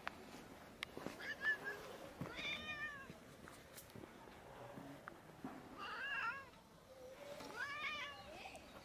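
Domestic cat meowing about four times, short rising-and-falling calls a few seconds apart.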